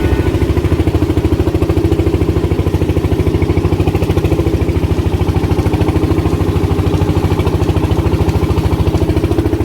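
A small engine running steadily at a constant speed, with a fast even pulse from its firing strokes.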